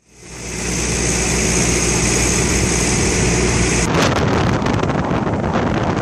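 Forklift engine running steadily. About four seconds in it gives way to wind buffeting the microphone.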